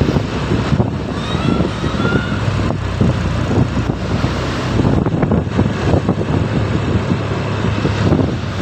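Large bus with its diesel engine running, steady engine hum and road noise, with wind buffeting the microphone. A faint short rising tone sounds about a second in.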